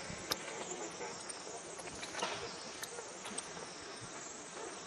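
Steady insect chorus, a high continuous buzzing drone, with a few faint clicks scattered through it.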